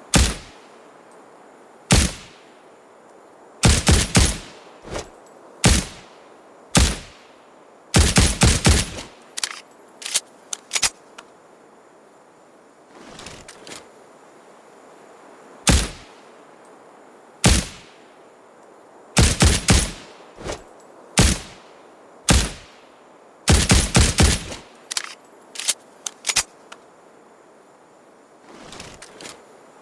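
Suppressed Ruger Security-9 9mm pistol firing, with single shots and quick strings of three to five shots, a couple of seconds or so apart, and a few fainter pops in between.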